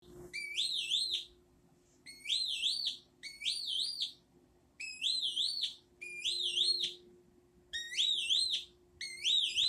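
Syncrometer's electronic tone sounding seven times in short separate whistles, each one rising, dipping and rising again in pitch.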